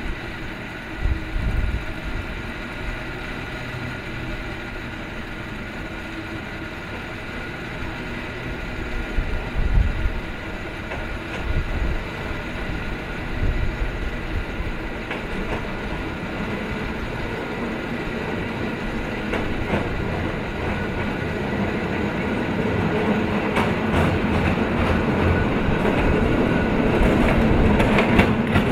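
Cable car running on its street tracks and coming closer, a low rumble with a steady high whine under it, growing louder with clicks and rattles near the end as the car passes close by.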